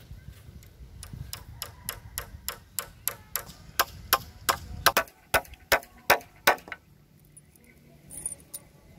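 Hammer striking a nail into a bamboo pole of a frame: a run of about twenty quick blows, roughly three a second, getting louder, stopping about six and a half seconds in.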